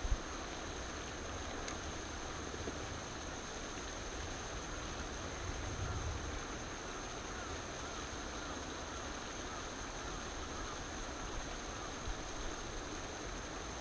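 Steady outdoor background noise: an even hiss with a low rumble underneath and a faint steady high tone.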